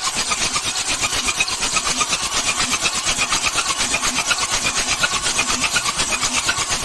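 Isuzu 6HL1 inline-six diesel engine running with a rapid, even clatter, just after starting.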